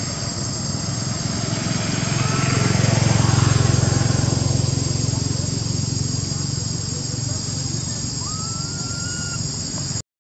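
Outdoor ambience with a steady high drone of insects. A passing motor vehicle's low engine rumble swells and fades through the middle, and two short whistled notes come about two seconds in and again near the end. The sound cuts out briefly just before the end.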